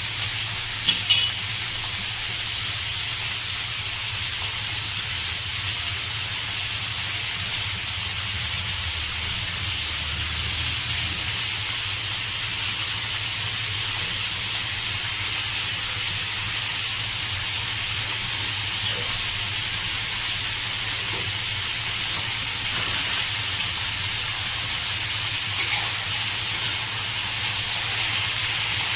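Onions frying, a steady sizzling hiss, with a couple of sharp clicks about a second in.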